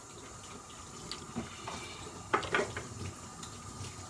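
Kitchen tap running into a sink while dishes are washed, with a couple of sharp clicks about halfway through.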